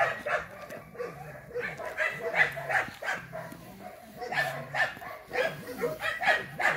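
A dog making short vocal sounds over and over, roughly one a second.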